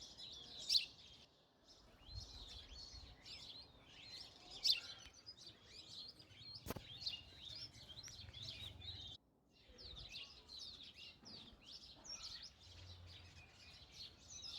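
Many sparrows chirping at once, a dense, continuous chatter of short overlapping chirps. A single sharp click sounds about halfway through, and the chatter breaks off for a moment a little after nine seconds.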